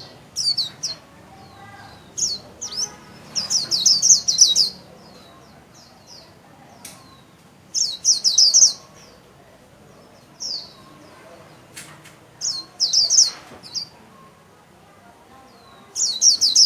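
White-eye (vành khuyên) singing its 'líu' song: short bursts of fast, high twittering notes, about seven bursts, the longest around a second, with pauses of a few seconds between them.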